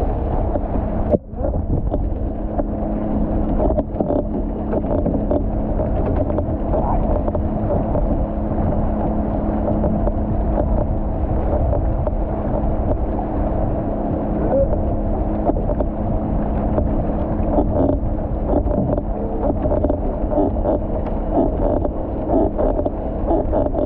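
Motorboat engine droning steadily ahead, mixed with water rushing along an outrigger canoe's hull as it rides the boat's wake, and wind buffeting the microphone.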